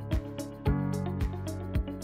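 Background music with a steady beat, about two beats a second, over sustained chords.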